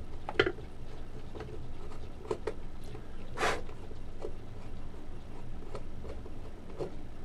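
Light scattered clicks and taps of a small screwdriver and wire terminals being worked at a terminal strip, with one short louder rustle about three and a half seconds in.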